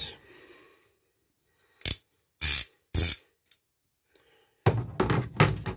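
Large steel ratchet spanner being handled over its hard plastic case: three short sharp knocks about two to three seconds in, then a burst of metal-on-plastic clatter near the end as it is set back into its slot.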